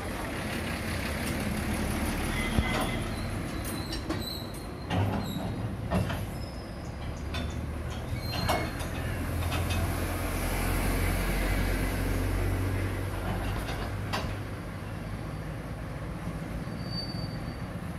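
A truck engine running steadily at idle, a low hum that swells for a few seconds in the middle, with scattered metal clanks and knocks and a few short high squeaks.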